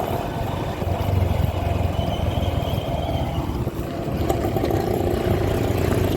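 Honda SP125 motorcycle's single-cylinder engine running steadily while being ridden, with road noise. A faint high tone sounds from about two to three and a half seconds in.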